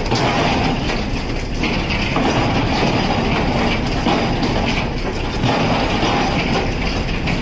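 Fishing ship's deck machinery running with a loud, steady rumble and rattling clatter.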